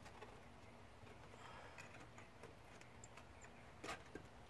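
Faint scattered clicks and taps from hand work on the wiring as a wire is fastened tight at the air-conditioner relay terminal, with one sharper click a little under four seconds in, over a low hum.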